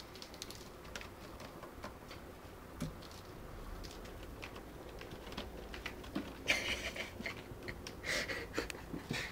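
Kittens playing at a sisal scratching post: faint scratching and patter of small paws and claws, with two short louder scratchy rustles near the end.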